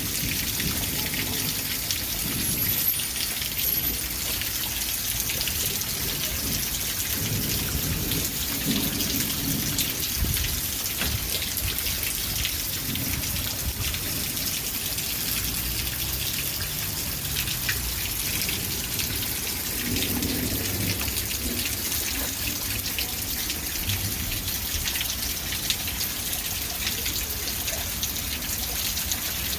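Steady rain falling, an even hiss of many drops, with low rumbles underneath now and then.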